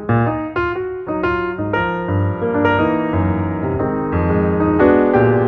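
Intro music on piano or electric keyboard: a string of quick plucked-sounding notes over a steady bass.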